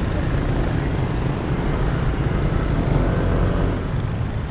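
City street traffic: motorbike and car engines running with a steady low road rumble.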